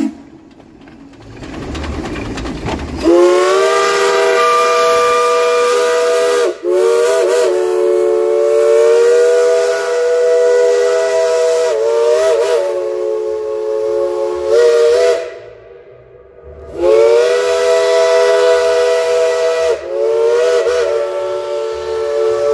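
Shay geared steam locomotive whistle blowing a series of long blasts, several tones sounding at once, with short breaks between them. A rush of steam hiss comes just before the first blast.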